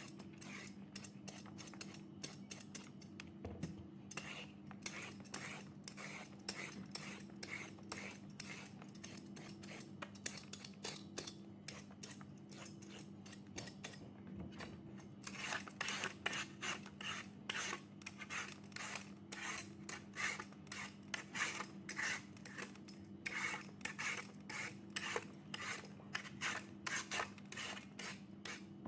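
Handheld julienne peeler drawn again and again along a raw carrot, each stroke a short scrape as it cuts thin strips. The strokes are quick and even, and grow louder and come faster about halfway through.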